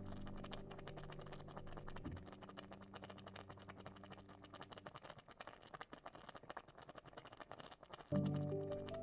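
Curry simmering in a pan: a steady, dense fine crackle of popping bubbles and spitting oil. Soft background music fades out about two seconds in and comes back near the end.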